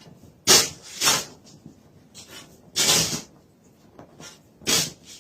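Boots crunching in deep snow: four separate crunches at irregular gaps, with quiet between them.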